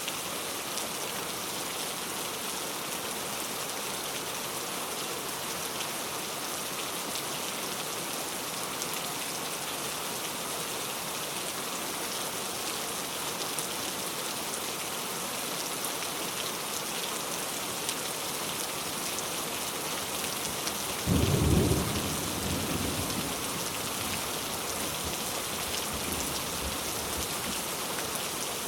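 Heavy rain falling steadily on a road, an even hiss. About three-quarters of the way through comes a sudden deep burst, the loudest moment, lasting a second or two before fading back into the rain.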